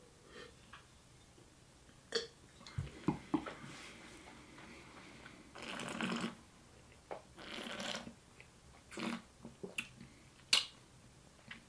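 Quiet mouth and nose sounds of wine tasting: two breathy slurps or sniffs of about half a second each, around the middle, with soft lip smacks and small clicks scattered between.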